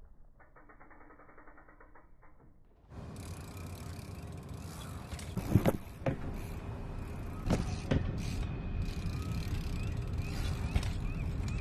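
Mountain bike riding and hopping along the narrow beams of a steel sculpture: tyres rolling on the metal, with several sharp knocks as the wheels land. Faint at first, louder from about three seconds in.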